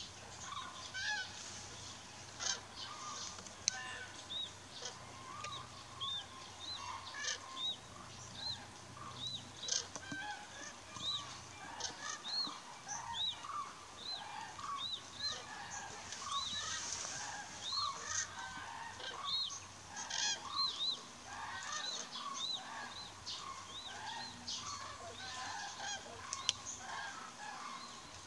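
A flock of common cranes calling, many short calls overlapping and repeating throughout.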